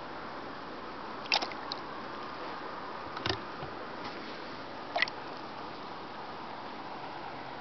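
Kayak paddle strokes on calm water: three short, sharp splashes of the blade, roughly one every two seconds, over a steady faint hiss.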